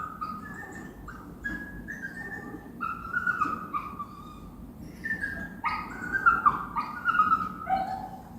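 A dog whining and whimpering in a run of short, high, falling cries, coming thicker and louder in the second half.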